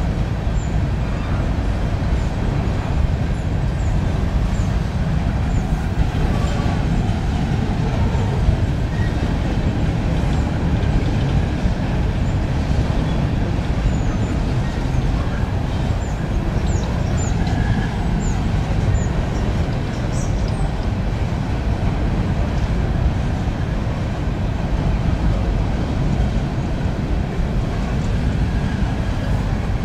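Union Pacific coal train's hopper cars rolling slowly over a river bridge: a steady low rumble of wheels on rails. A few faint short high chirps come about halfway through.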